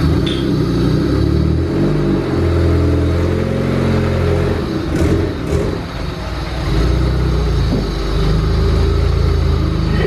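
Freshly rebuilt engine of a turbocharged Honda Civic wagon running on its first drive after the rebuild, with its engine speed rising and falling a few times as the car backs away. Two short clicks come about halfway through.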